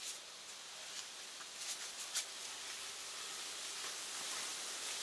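Steady high outdoor hiss with a few light clicks and taps from a backpack being handled on stony ground, the sharpest about two seconds in.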